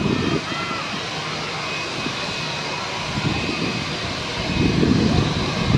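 Airbus A320 jet engines running at taxi power: a steady rushing hum with a faint high whine on top. Irregular low rumbling swells come and go, strongest near the end.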